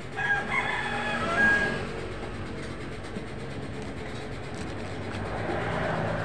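A rooster crows once, starting just after the beginning and lasting about a second and a half. Near the end, a van passes by and its noise swells, over a steady low hum of traffic.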